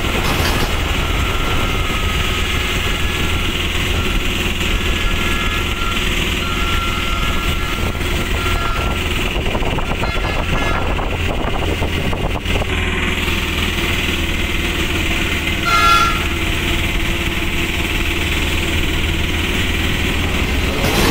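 Steady running rumble of a moving train heard from on board. A short high-pitched tone sounds about three-quarters of the way through.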